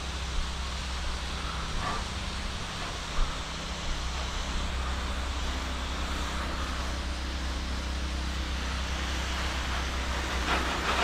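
Pressure washer running steadily while its wand sprays a rinse stream, a low machine hum under an even hiss of water spray.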